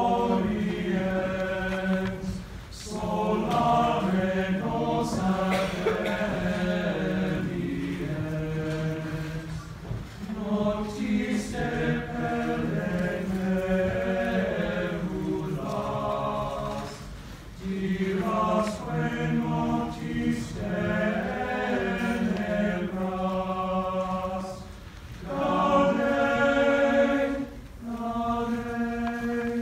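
Choir singing held chords in phrases of a few seconds, with short breaks between phrases.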